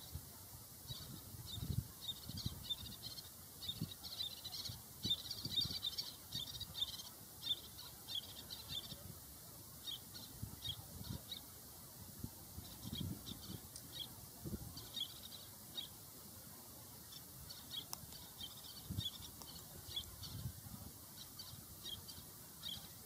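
Little terns calling: many short, high chirping calls in quick runs, thickest about five to seven seconds in, with occasional low thumps underneath.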